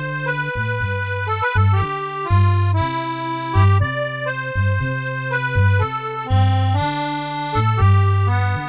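Instrumental background music: held, reedy melody notes over a low bass note that comes roughly once a second.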